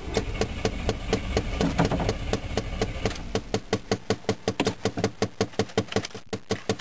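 Starter cranking a Chevrolet 305 V8 for about three seconds without it catching: the engine turns over but does not fire. A steady, even ticking runs throughout.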